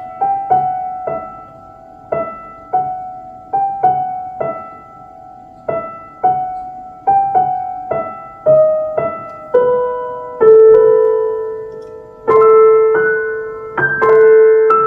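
Piano playing a slow melody of single struck notes that ring and fade, with fuller, louder chords from about ten seconds in.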